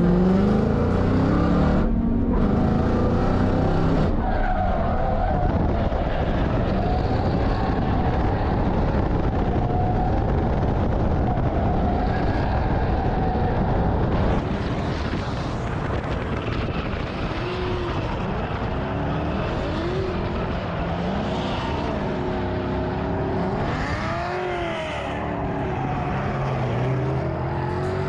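Ford Mustang GT's V8 heard from inside the cabin, revving hard as the car is driven and slid, with tyres squealing. In the second half the pitch rises and falls again and again.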